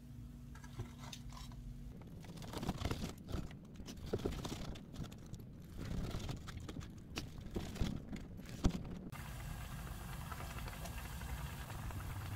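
Knife slicing through a crispy deep-fried pork cutlet on a plastic cutting board: a few seconds of irregular crunches of the breaded crust, ending with one sharp click. From about nine seconds in, a steady hiss of kimchi nabe bubbling in a pan on a gas stove.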